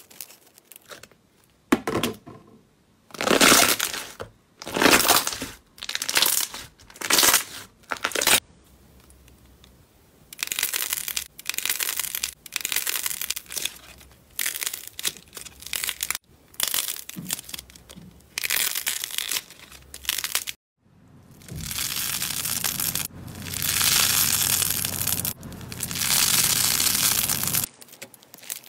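Hands squeezing, pulling and pressing slime: a series of crackling, squishing strokes about a second apart, then a longer unbroken run of crinkling squelches near the end.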